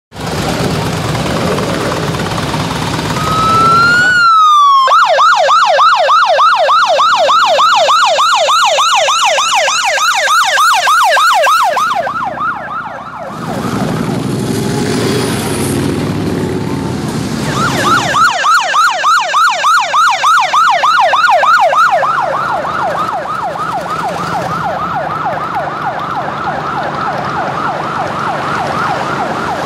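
Electronic siren of the procession's motorcycle escort. It starts with a short rising wail, then switches to a fast yelp of several sweeps a second. About twelve seconds in it breaks off, leaving a few seconds of engine and road noise, then the yelp starts again and keeps going.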